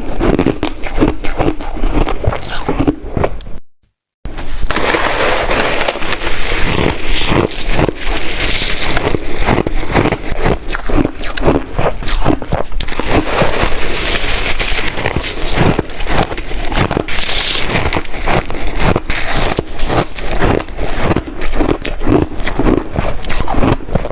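Close-miked chewing of hard ice, a dense run of rapid crunches and cracks. The sound drops out completely for a moment about four seconds in, then the crunching starts again.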